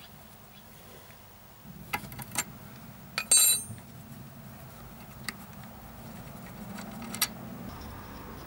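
Scattered small clicks and metallic clinks of a brake bleed screw and its cover being handled and removed by hand. The loudest is a short ringing clink about three seconds in.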